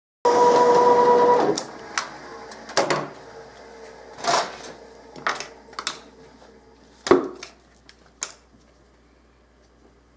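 CNC router spindle running with a loud, steady whine for about a second, then stopping. After it come about eight sharp clicks and scrapes as the freshly cut gasket is picked at and handled on the router bed.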